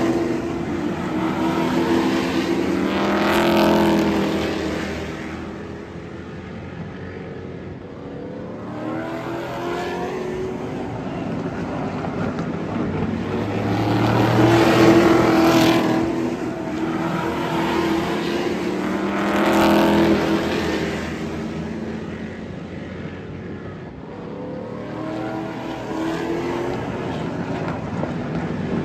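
A pack of hot rod class stock cars racing past on a short oval track, the engines swelling loud as the cars come through the turn and fading as they pull away. The loudest passes come about 3 seconds in, about 15 seconds in and about 20 seconds in.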